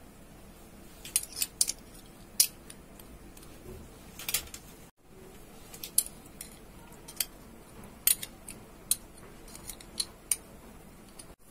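Light, irregular clicks and clinks of a small glass bowl and spoon against a pan as salt and ginger garlic paste are added to raw chicken, about a dozen sharp ticks in all. Under them is a faint steady room hum, broken by a brief dropout about halfway.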